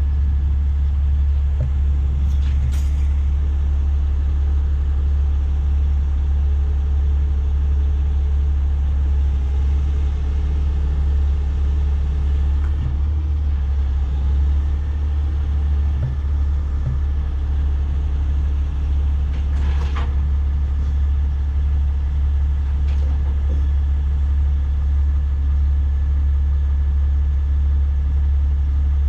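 Diesel engine of a heavy 50-ton rotator tow truck running steadily as a deep, even hum, with a brief click near the start and another about two-thirds of the way through.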